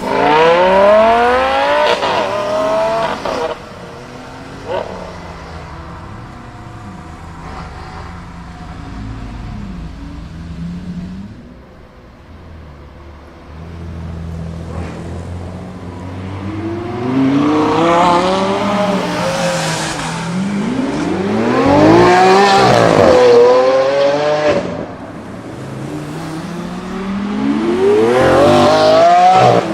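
Supercar engines accelerating hard as cars pull away one after another: about four full-throttle pulls with the engine note rising steeply, one dropping in pitch at a gearshift and rising again. Between the first pull and the later ones, a quieter low engine rumble.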